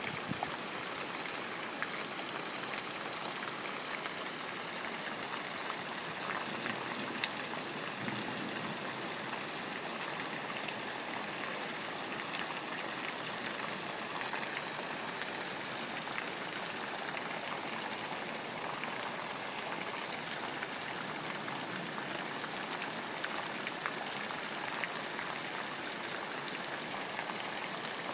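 Steady downpour of rain: an even, constant hiss with scattered nearby drops ticking.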